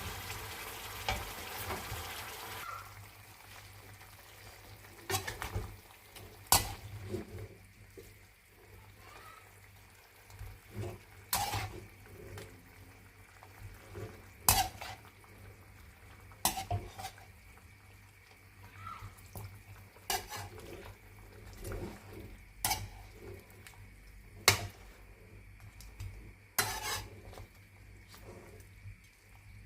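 A utensil scraping and knocking against the pan as chicken pieces are stirred while they roast in oil, with sharp clacks every few seconds. Faint sizzling is heard under the first few seconds.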